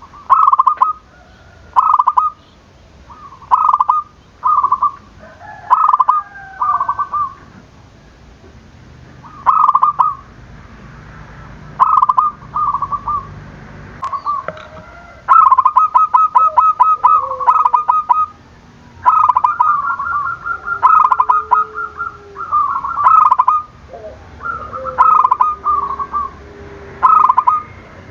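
Zebra doves (perkutut) cooing, a rolling, stuttering phrase repeated every second or two, the calls crowding and overlapping in the second half, with a lower, softer coo joining in around two-thirds of the way through.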